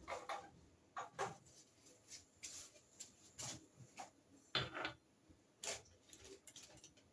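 Faint scattered clicks and light knocks, about half a dozen over several seconds, from baking tins being handled and set into a kitchen oven.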